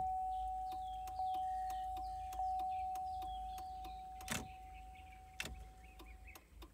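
The SUV's dashboard warning chime rings about three times, roughly a second apart, as one steady tone, and the last stroke dies away slowly over several seconds. Light clicks run underneath, with two louder knocks about four and five seconds in.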